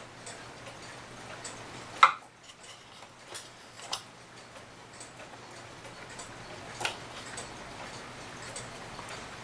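A mechanical clock ticking steadily, a little under twice a second, with a few sharper knocks and clicks from small clock parts being handled, the loudest about two seconds in and another near seven seconds.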